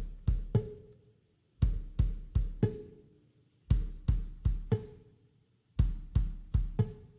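Music with a drum-kit beat: bass-drum and snare hits in a short pattern that repeats about every two seconds.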